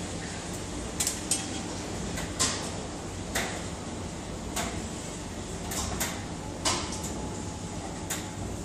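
Short sharp clinks and knocks, about one a second and unevenly spaced, as wet laundry is handled and dropped into the metal drum of a laundry centrifuge, over a steady low rumble.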